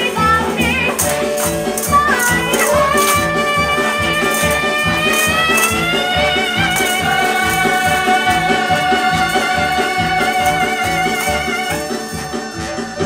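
Show music from a stage musical: a band playing a fast, driving beat with shaken and struck percussion, under a long held note with vibrato that slides upward and is sustained, breaking off near the end as the music dies away.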